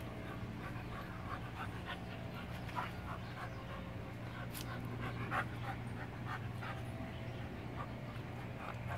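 Dogs panting as puppies sniff at one another, over a steady low hum, with scattered faint ticks.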